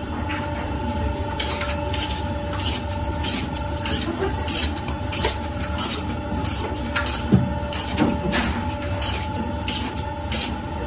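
Bakery work clatter: many short metal scrapes and clinks at irregular intervals, over a steady hum.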